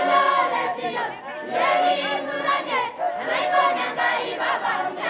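Group of Maasai men chanting and singing together for their jumping dance: many overlapping voices with calls, and a short held note that comes back every second or two.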